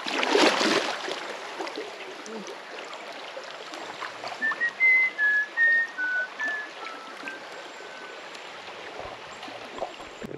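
Flowing river water, with a loud rushing surge in the first second. From about four and a half seconds in, a run of eight or nine clear whistled notes steps up and down in pitch for about three seconds.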